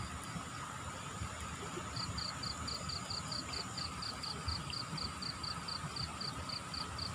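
Steady rushing of fast-flowing floodwater, with an insect starting a regular high chirping, about five pulses a second, some two seconds in.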